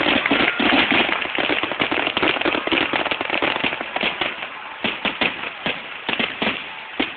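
Aerial fireworks bursting in a rapid barrage: a sudden, dense crackle of many bangs that thins out into separate cracks over the last few seconds, with another strong bang near the end.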